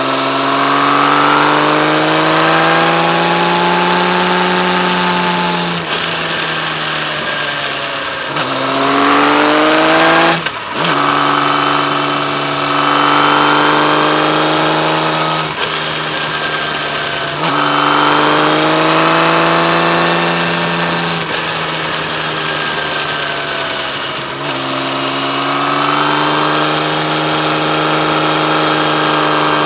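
Kawasaki Z1300's liquid-cooled inline-six engine under way, its pitch climbing as it pulls through the gears and dropping at each gear change, several times over.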